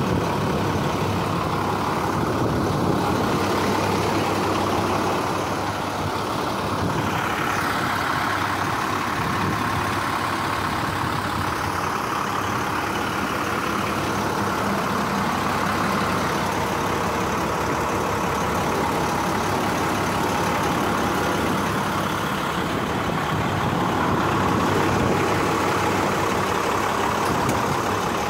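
International 4300 service truck's diesel engine idling steadily.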